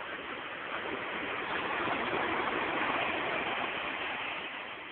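Ocean surf: a wave breaking and rushing up the beach, swelling to a peak about halfway through and then fading.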